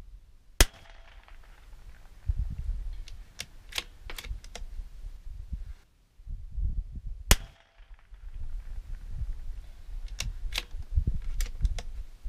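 Two sharp .22 LR rimfire rifle shots from a CZ 457 MTR, about 0.6 s and 7.3 s in, with lighter clicks between them and a low rumble underneath.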